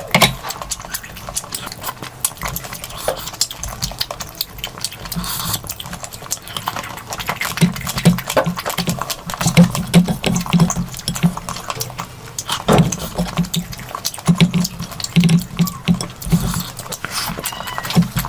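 Close-miked eating sounds: wet chewing, lip smacks and mouth clicks in a quick, irregular run, busiest in the middle.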